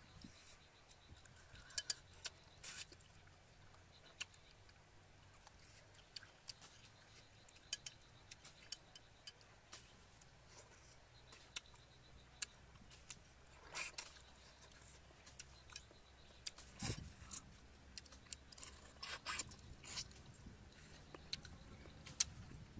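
Quiet eating sounds: a metal spoon clicking and scraping against a ceramic soup bowl at irregular moments, with chewing and lip sounds between.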